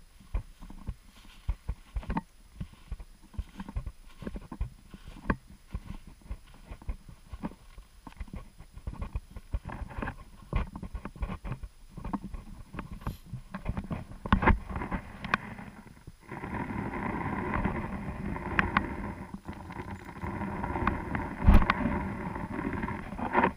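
Footsteps crunching in snow: an irregular run of short crunches, several a second. About two-thirds of the way through, a steady noise sets in under them.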